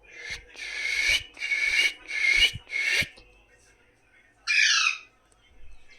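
A parrot squawking: five harsh, scratchy calls in quick succession, then one more call a second and a half later that falls in pitch.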